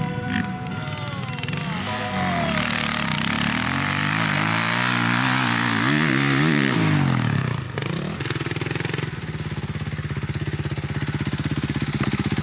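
Suzuki motocross bike's engine revving up and down repeatedly as it is ridden through the turns, then holding a steady, even note for the last few seconds.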